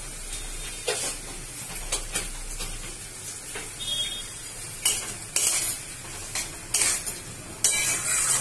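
Metal spatula stirring and scraping onion-tomato masala around a metal wok, with clanks against the pan over a low sizzle as the masala fries down. The scrapes come sparsely at first, then louder and more often in the second half.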